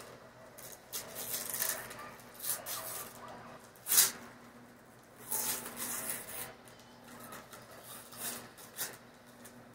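Wrapping paper being torn and crinkled off a gift by a toddler's hands: irregular rips and rustles, the sharpest rip about four seconds in.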